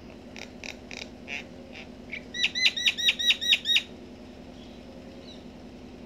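Common myna calling: a few soft notes, then about two seconds in a fast run of about eight loud, clear repeated notes lasting a second and a half.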